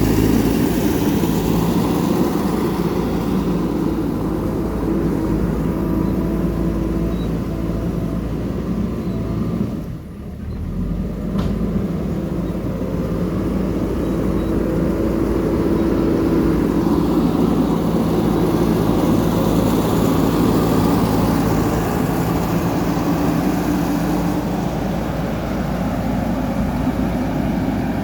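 Diesel engine of a JCB 3DX backhoe loader running steadily while the machine works. The sound drops briefly about ten seconds in, then comes back.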